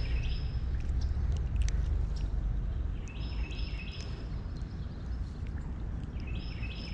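A songbird singing a quick series of short, repeated high notes, heard twice, over a steady low rumble of wind on the microphone and a few faint clicks of handling.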